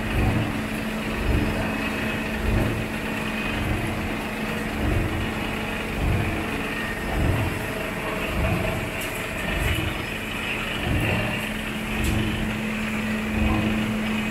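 Plastic-bag shredding machine running: a spiked drum turning on a chain drive, with a steady hum and a low throb about every second and a quarter.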